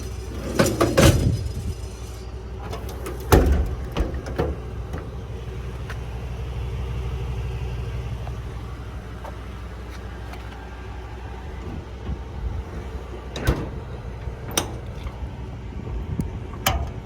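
Truck idling steadily, with several sharp knocks and clunks of doors or compartment hatches being opened and shut: a cluster at the start, a few around three to four seconds in, and single ones near the end.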